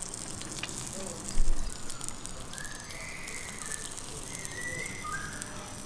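Salmon skewers sizzling over charcoal embers, with a steady hiss and frequent crackles and pops from the coals. A bird chirps a few times in the background midway, and there is one brief low thump about a second and a half in.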